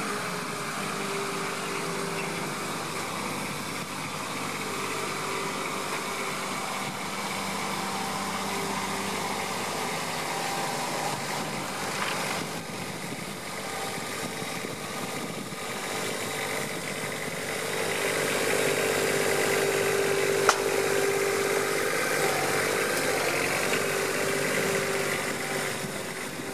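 Takeuchi TB210R micro excavator's diesel engine running steadily while the machine tracks and grades soil, getting louder about two-thirds of the way through, with a single sharp click near the end.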